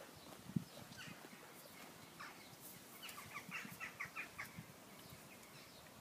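New Forest ponies moving on turf, with a sharp thud about half a second in and soft knocks of hooves and grazing. Midway, a bird calls a quick run of about eight notes.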